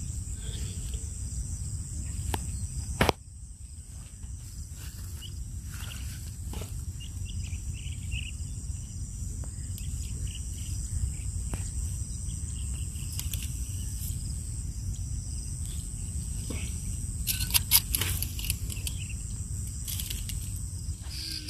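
Steady high-pitched insect buzz over a low steady rumble, with scattered clicks and rustles as a fishing net is handled. There is a sharp click about three seconds in, after which it is a little quieter, and a cluster of louder clicks a few seconds before the end.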